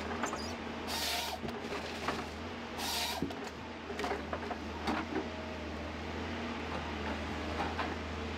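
A heavy forestry machine's engine running steadily as a low hum, with two short hissing bursts about one and three seconds in and a few light knocks.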